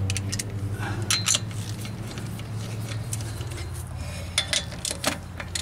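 Scattered metallic clinks and taps as a socket on an extension and a lug nut are handled against the studs of a wheel spacer, over a steady low hum.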